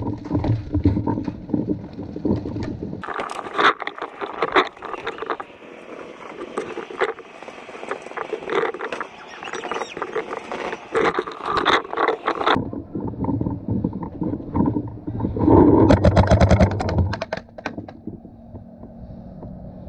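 Paintball game: many sharp pops and cracks in quick succession from about three seconds in until past the middle, paintball markers firing and balls striking a wooden fence, with rustling movement noise before and after.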